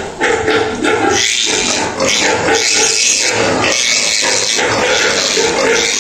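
Pigs calling in a close run of loud, noisy squeals, each about half a second to a second long.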